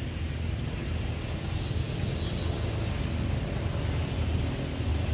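Outdoor background noise: a steady low rumble under a fainter hiss, growing slightly louder toward the end.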